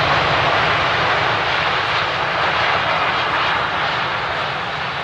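Airbus A380's jet engines running at high power as the airliner rolls along a wet runway: a steady rushing noise over a low rumble that slowly fades near the end as the plane moves past.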